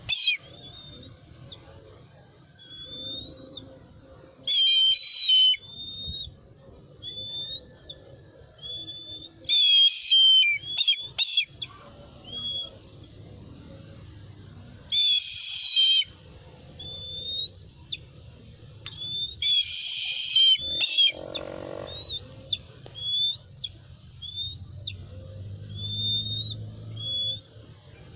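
Golden eagle calling: a run of short, high, whistled upslurred notes, roughly one a second, broken every few seconds by a louder, longer shrill call, five of these in all.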